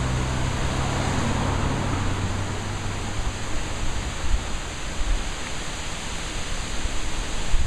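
Wind rushing through the trees and buffeting the microphone in a steady noisy roar. A car passes close by at the start, its engine hum fading away over the first few seconds.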